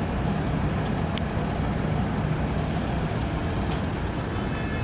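Steady rushing noise with a low droning hum underneath and a few faint clicks.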